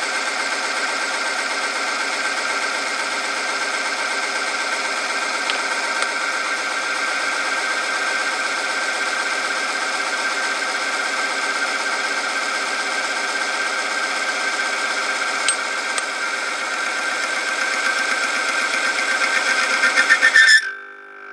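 Friction testing machine running under load, its electric motor turning a steel ring that grinds against a test sample lubricated with Motul 300V Off Road 15W60. It makes a steady, dense whine with a strong high tone, which grows louder and rougher towards the end. Then the motor stops suddenly about a second before the end, the sign that the oil film has torn under the load.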